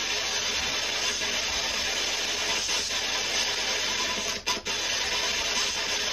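Steady hiss of noise with no clear source. It cuts out twice in quick succession about four and a half seconds in.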